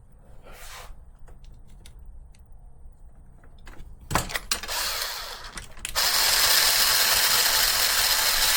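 Small handling clicks, then a knock about four seconds in and a short burst of a power screwdriver, which from about six seconds runs steadily with a loud whir while driving a screw into the RC car's chassis parts.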